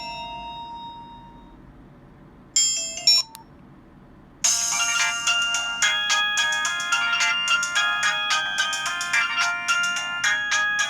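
Nokia 105 phone playing its built-in ringtones through its small speaker. A preceding tone dies away, a short chime sounds about two and a half seconds in, and about four and a half seconds in a busy polyphonic ringtone of quick, bright notes starts abruptly and keeps going.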